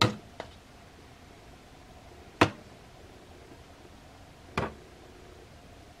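A few isolated sharp knocks over quiet room tone: a small one near the start, the loudest about two and a half seconds in, and another about two seconds after that.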